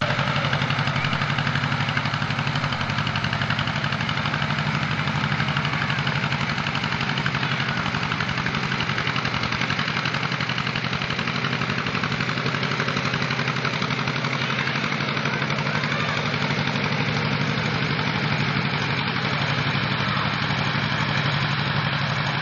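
Farm tractor engine running at a steady speed while towing a sled over snow.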